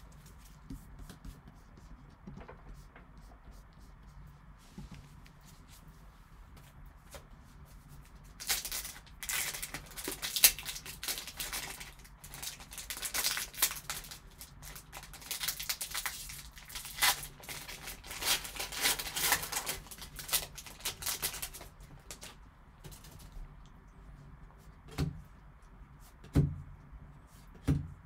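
A Skybox Metal Universe hockey card pack's foil wrapper being torn open and crinkled, a busy run of crackling and tearing that starts about eight seconds in and lasts some thirteen seconds. A few soft thumps follow near the end as the cards are handled.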